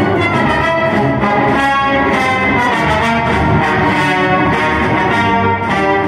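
Music with brass instruments playing loudly through an Apple iPod Hi-Fi dock speaker, fed from a phone over a 3.5 mm aux cord and turned up to demonstrate it works; it is pretty loud.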